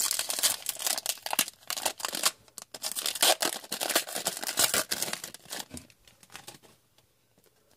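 Crinkling and rustling of trading-card packs and cards being handled. The crackling is dense and irregular at first and dies away about six seconds in.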